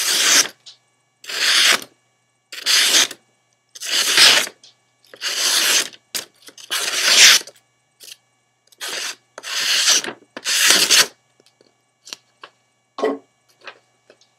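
A sheet of paper being sliced with a factory-edged knife: about nine drawn cuts, each under a second, spaced a second or so apart. The cutting stops about eleven seconds in, followed by a few faint light clicks and rustles.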